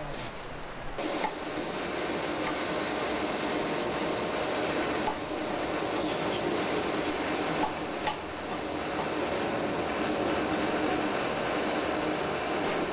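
A machine running steadily with a faint hum, starting about a second in, with a few light clicks.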